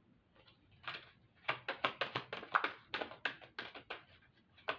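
Deck of tarot cards being shuffled by hand. From about a second and a half in, the cards slap together in a quick run of crisp snaps, about five a second.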